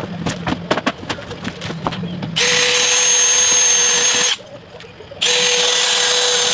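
Cordless drill driving screws into a wooden deck board, its motor running steadily in two runs of about two seconds each with a short pause between. Before it, a few footsteps and knocks on the deck boards.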